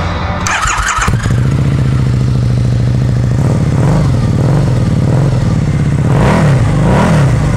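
Harley-Davidson V-Rod Night Rod Special's V-twin running through a Vance & Hines slip-on exhaust. From about a second in it idles steadily, then is blipped four times in the second half, each rev rising and falling quickly.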